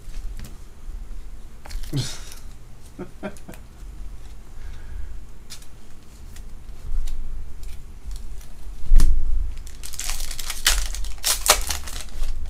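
Foil trading-card pack wrappers crinkling and tearing as packs are ripped open by hand, in short crackling bursts that come thickest and loudest in the last few seconds.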